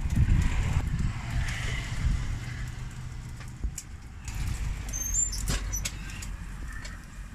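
Street-side ambience dominated by a low motor-vehicle engine rumble with a steady hum, loudest in the first second. Scattered sharp metal clicks and scrapes from a metal spatula working a steel taco griddle sound over it.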